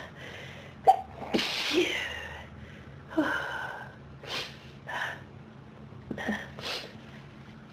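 A person sneezing again and again in a long sneezing fit, each sneeze with a sharp gasping intake of breath, several in a few seconds.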